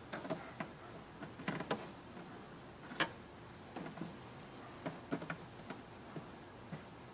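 Plastic cabin-filter housing and trim parts being handled and fitted back together: scattered light clicks and taps, the sharpest about three seconds in.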